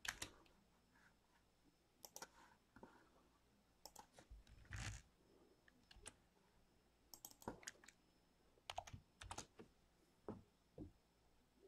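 Faint, irregular clicks and short runs of typing on a computer keyboard and mouse.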